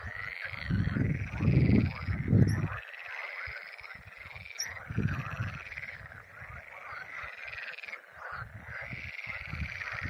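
A dense, continuous chorus of frogs croaking in a reed marsh, many calls overlapping. A few short high bird chirps sound over it, and low rumbling comes and goes, loudest about two seconds in.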